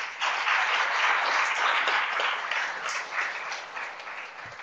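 Audience applauding a finished talk: a burst of clapping that starts right away, holds for about three seconds, then dies away.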